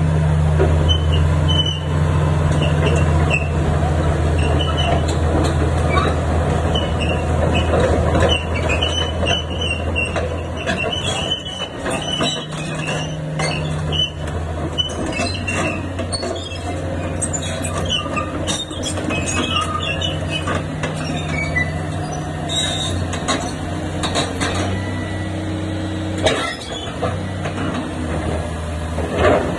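Caterpillar 336D excavator's diesel engine running with a steady low hum, overlaid with many short, high metallic squeaks and chirps through the first two-thirds, and a few sharp clanks later on.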